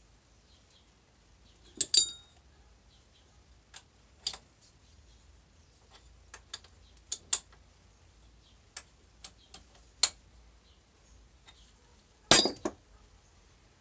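Metal-on-metal clicks and clinks as the tool post of an old lathe is handled and its bolts worked with a wrench. There are about a dozen scattered taps, a sharp clink about two seconds in, and the loudest, ringing clank near the end.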